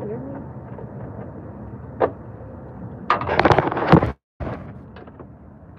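Smartphone being picked up and repositioned: a single click about two seconds in, then about a second of loud scraping and rubbing against the microphone, cut off by a brief dropout, followed by a few lighter knocks over a steady low hum.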